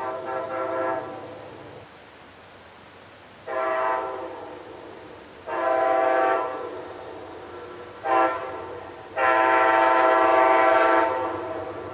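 Amtrak Siemens ALC-42 locomotive's multi-tone air horn sounding five separate blasts. The last four go long, long, short, long, the standard signal for approaching a road crossing.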